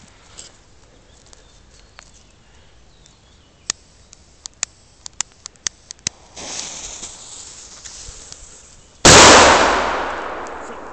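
A flash-powder firecracker (nitrate banger): a run of sharp clicks, then the fuse hissing for about two and a half seconds, then one very loud bang with a long fading echo.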